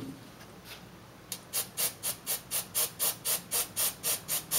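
Aerosol carburetor cleaner sprayed in a quick run of short bursts, about four a second, starting about a second in.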